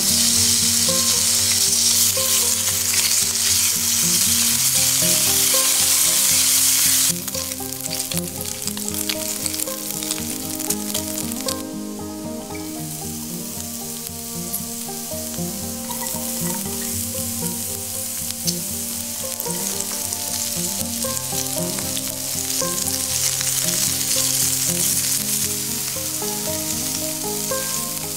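Pork pieces sizzling in hot oil in a nonstick frying pan, later with chopped cabbage and onion frying on top. The sizzle is loud for about seven seconds, drops off suddenly, then goes on quieter and swells again near the end.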